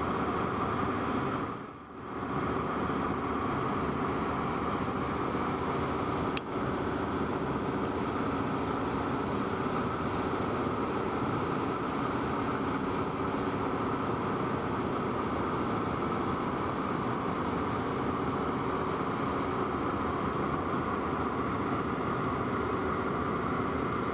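Steady road and engine noise inside a car driving at highway speed. It dips briefly about two seconds in, and a single sharp click comes about six seconds in.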